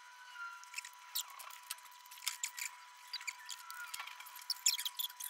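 Kitchen shears snipping and cracking through raw lobster tail shells: a run of irregular sharp clicks and crunches, thickest near the end.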